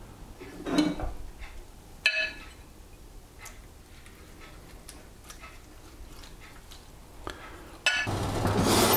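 Quiet kitchen handling as a basting brush dabs marinade from a ceramic bowl onto a raw pork fillet on a wire rack: soft brushing and scattered light ticks, with one ringing clink of a utensil about two seconds in. Near the end a steady low hum cuts in abruptly.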